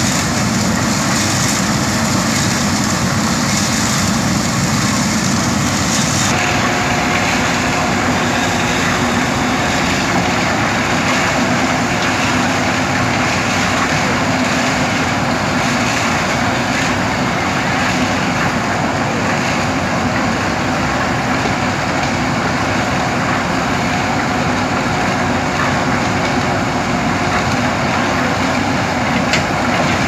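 JCB 3DX backhoe loader's diesel engine running steadily under load while the backhoe arm digs and dumps topsoil.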